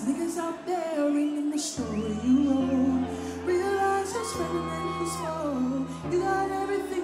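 Live music: a woman singing long, held notes with slides between them into a microphone, over sustained bass and keyboard chords that shift every second or two.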